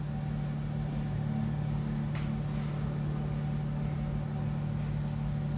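A steady low mechanical hum with a low rumble under it, and one faint click about two seconds in.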